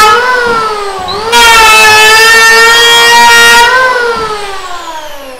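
Dong Cheng electric hand planer running with a loud, high whine. From just over a second in, its blades bite into teak with a rough hiss for a little over two seconds. Then the motor is cut off and the whine falls in pitch as the cutter spins down.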